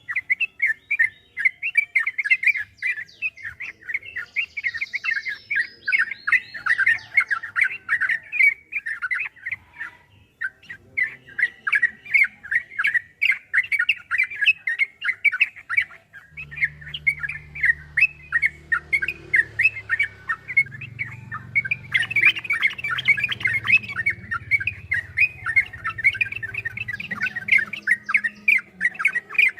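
Yellow-vented bulbul (trucukan) singing a long, rapid chattering song, many short notes a second, with a brief break about ten seconds in. A low hum runs underneath from a little past halfway.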